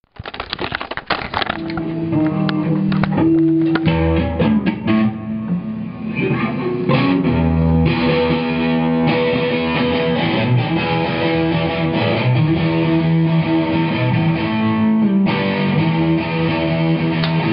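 Electric guitar playing held notes and chords through an amplifier, with a fast run of sharp clicks in the first couple of seconds.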